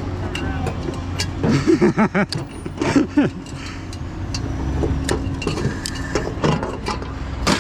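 A vehicle engine running steadily, with a brief indistinct voice or call about two to three seconds in.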